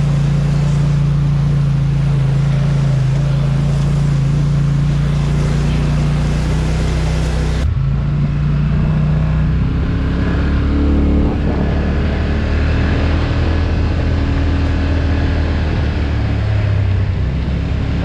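Off-road vehicle engine running under way, a steady hum. About eight seconds in the sound cuts to a lower, uneven engine note that rises and falls.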